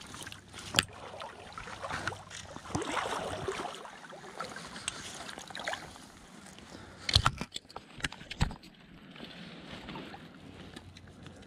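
Water sloshing and splashing around wading legs and a landing net being handled in the water, with a few sharp knocks about a second in and again around seven and eight and a half seconds in.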